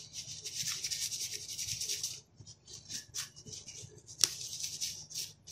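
A paper tissue rubbing on a laptop's processor, scrubbing off old dried thermal paste: a steady dry rubbing for about two seconds, then shorter separate strokes with a small click about four seconds in.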